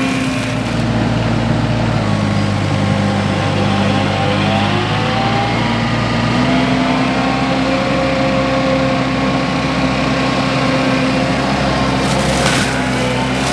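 Mini skid steer engine running with the forestry mulcher head spinning. The engine pitch drops about two seconds in and climbs back a few seconds later. Near the end come sharp cracks of wood being shredded by the mulcher.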